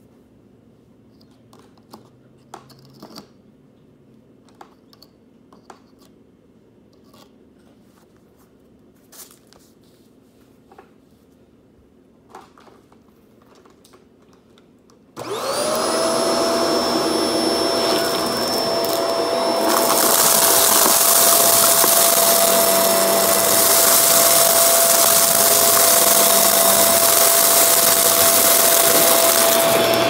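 A few light clicks and knocks over quiet room noise, then about halfway through a Shark Professional upright vacuum switches on: its motor spins up quickly into a steady whine over a loud rush of air, and the rush grows louder a few seconds later.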